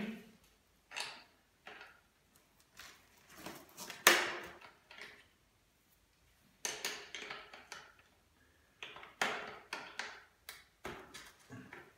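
Hand tools clicking and scraping on metal as the bolt holding a stroller's front fork is worked loose, in short irregular bursts with the sharpest click about four seconds in.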